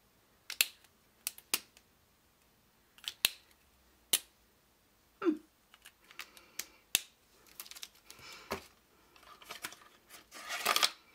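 Sharp plastic clicks of fineliner pens being handled, about a dozen single clicks, then rustling and crinkling of packaging that grows louder near the end.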